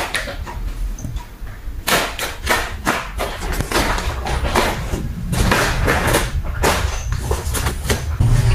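A large paper envelope crinkling and rustling in quick bursts as a cat paws, pushes and pounces on it on a tile floor, with another cat inside it. The crinkling starts about two seconds in and keeps coming in rapid scrunches.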